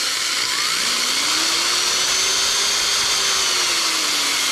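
Old Makita half-inch corded drill running free, its speed set by a router speed control: the motor whine climbs in pitch about a second in as the knob is turned up, holds, then sinks somewhat near the end as it is turned back down, over a steady hiss from the motor.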